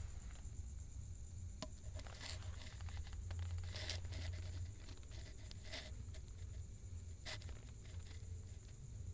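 About five short rustling scrapes, spread over several seconds, as hanging clothes brush against the phone, over a steady low hum and a faint high whine.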